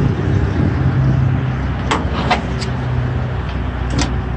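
TommyGate G2 service-body liftgate in operation: a steady motor hum as the platform unfolds, with a few sharp metallic clanks about two seconds in and again near the end.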